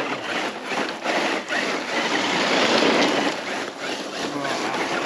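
Traxxas TRX-6 G63 6x6 radio-controlled truck driving fast in high gear over rough ground: a rushing noise of its tyres and drivetrain that swells about two to three seconds in.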